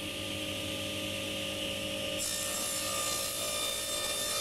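Table saw running steadily, then its blade biting into a pine board about two seconds in and cutting through it, making an angled crosscut.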